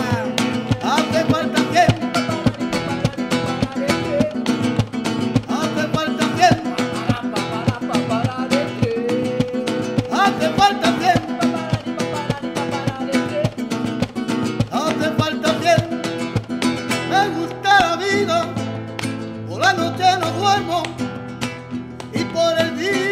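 Nylon-string acoustic guitar strummed in a quick, steady rumba rhythm, with men singing over it.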